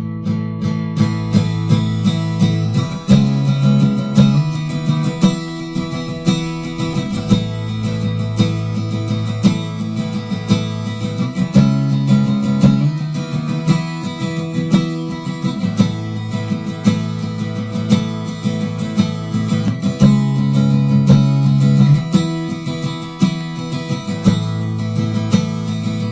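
Recorded acoustic guitar track playing back: chords strummed in a steady rhythm.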